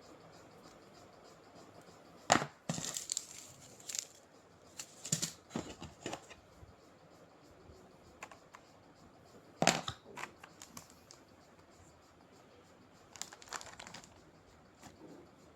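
A keyboard's cardboard box and packaging being opened and handled: scattered knocks and rustling in a few short clusters, with the sharpest knocks about two seconds in and again near ten seconds.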